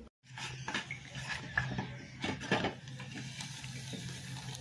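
Plastic spatula knocking and scraping against a small frying pan as a flatbread is turned, in a handful of short clicks and taps over a low steady hum.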